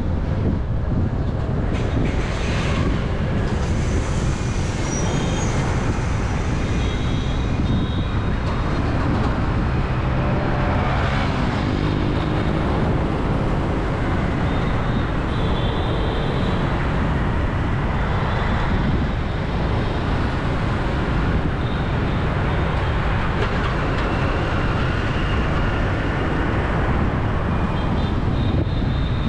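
Busy city road traffic heard from a moving vehicle: a steady rumble of engines and tyres from motorbikes and cars passing, with a few short high tones over it.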